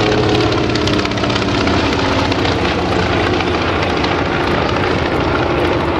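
Radial piston engines of a formation of Grumman propeller warbirds in a fly-by, a loud steady multi-engine drone whose pitch sinks slightly as the aircraft draw away.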